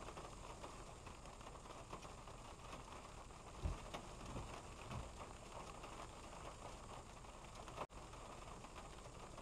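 Rain pattering on a stopped car, heard from inside the cabin as a steady faint hiss with small ticks. The windshield wipers sweep once, with a low thud about four seconds in and another about a second later.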